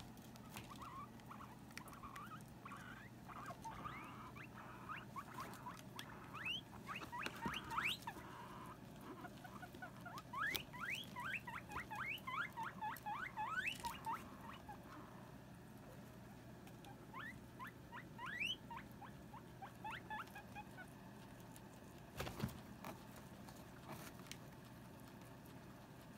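Guinea pigs squeaking in quick runs of short rising squeaks, in bursts through the first half and again briefly later, the sound of two sows squabbling. A single knock comes about three quarters through.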